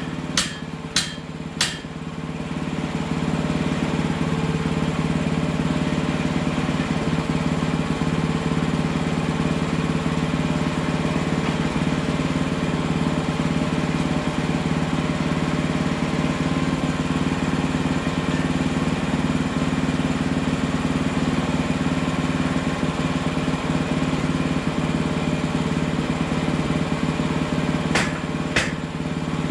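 Portable band sawmill's engine running steadily, a little louder from about three seconds in. Three sharp clicks in the first two seconds and a couple more near the end.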